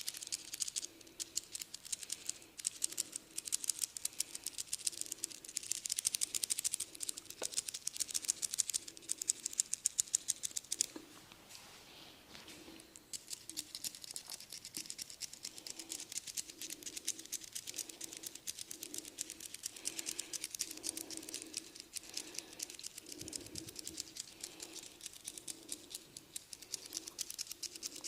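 Head massage: fast, dense clicking and scratching of hands working over hair and scalp, with a short lull about eleven seconds in.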